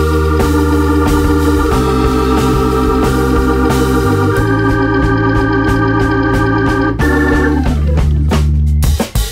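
Background music: held keyboard chords over a steady bass line, changing chord every second or so and breaking off briefly near the end.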